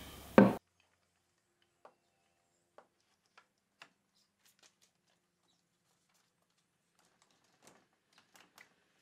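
A short loud knock about half a second in, then scattered faint wooden clicks and taps as a wooden handscrew clamp with camphor laurel screws is handled.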